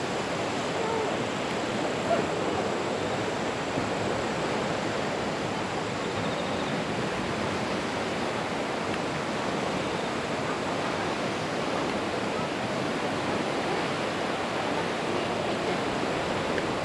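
Steady rushing outdoor wash of wind and small lake waves, even throughout with no distinct events.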